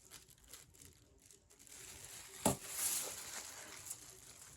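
Faint stirring and handling sounds as hair bleach is mixed into a thick paste, with a sharp click about two and a half seconds in followed by a short hiss.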